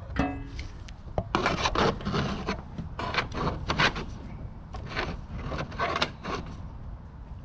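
Irregular scraping, rubbing and light knocking of aftermarket cold air intake parts being handled and fitted by hand.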